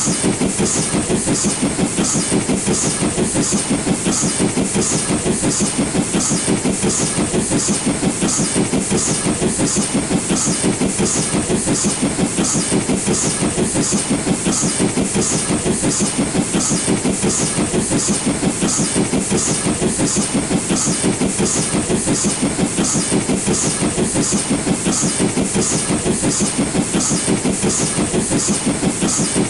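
LNER B12 4-6-0 steam locomotive working hard under load, hauling a train up a gradient: a steady, even rhythm of exhaust beats with hiss over the top.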